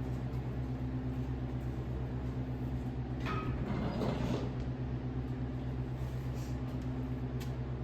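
An engine running steadily with an even low hum, and a brief scrape or rustle about three seconds in.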